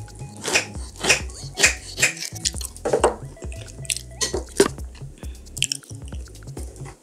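Fork and knife cutting into BBQ pork ribs on a platter, close to the microphone: a run of sharp clicks and scrapes, over background music.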